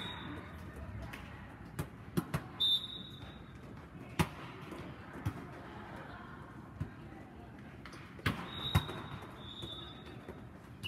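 Volleyball rally: a string of sharp smacks of the ball being hit and landing, irregularly spaced, with short high-pitched sneaker squeaks on the court floor.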